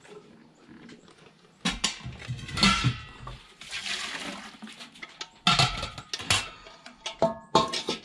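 A stainless steel milk pail being handled under a cow during hand-milking: several sharp metal clanks and knocks, each with a brief ringing tone.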